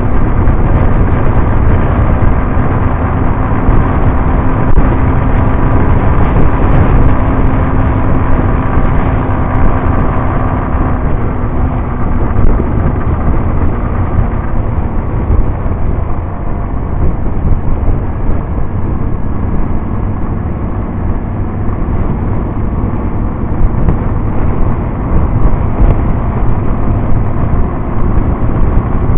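Motorcycle riding at highway speed: the engine running under a heavy rumble of wind on the microphone, with a steady engine note that drops away partway through.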